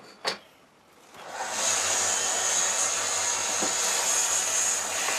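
Electric benchtop sander running up to speed about a second in, then running steadily with a high whine and airy hiss while it sands birch. A sharp click comes just before it starts.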